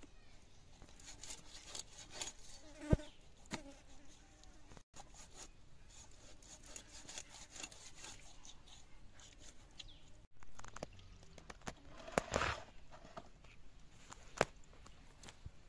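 Raw rohu fish being cut on a boti blade and the pieces handled on a plastic tray: scattered light clicks and knocks. The sharpest come about three seconds in and near the end.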